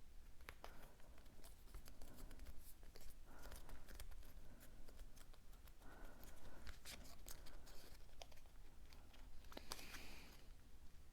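Faint hand-crafting sounds: scattered light taps and clicks with a few short rustles and scrapes as paper card pieces are handled and glued.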